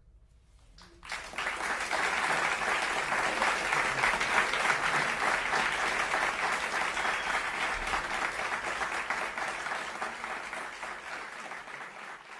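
Audience applause breaks out suddenly about a second in, dense and steady clapping that eases a little near the end.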